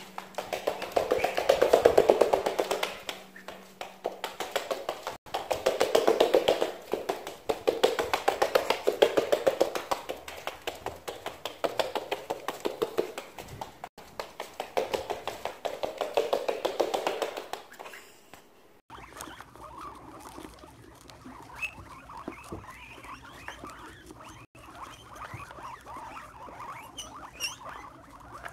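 A white duck walking on a hardwood floor, with loud bursts of sound every few seconds over quick, fairly regular clicking. About two-thirds of the way through it cuts to a group of guinea pigs feeding on Brussels sprouts: a quieter, busy patter with a few short high squeaks.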